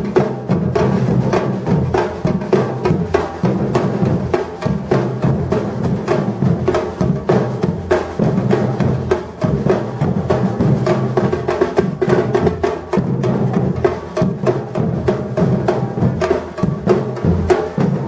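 Batucada drum ensemble playing a steady driving rhythm: low drums pulsing under dense, sharp strokes of snare and hand percussion, without a break.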